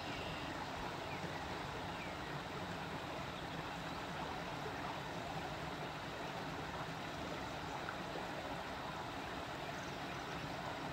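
Steady rushing of flowing river water, even throughout, with no distinct clicks or knocks.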